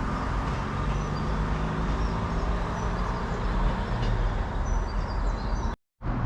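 Diesel passenger train's engine running steadily, a low drone, with faint bird chirps above it. The sound drops out completely for a moment near the end.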